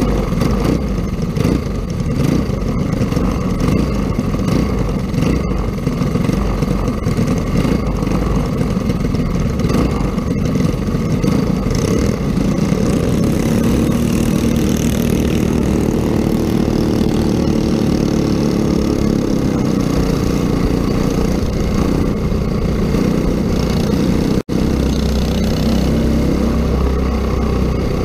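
Small racing kart engines heard from onboard a kart, running unevenly at low speed at first, then pulling steadily with the pitch rising and holding from about halfway through as the karts get under way. The sound cuts out for an instant near the end.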